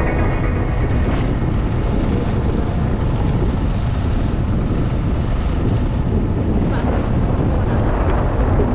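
Steady wind rush on the microphone of a moving motorcycle, with the bike's engine and road noise underneath.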